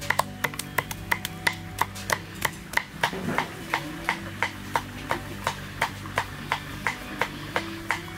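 A kitchen utensil knocking steadily, about three to four sharp strikes a second, over a low steady drone.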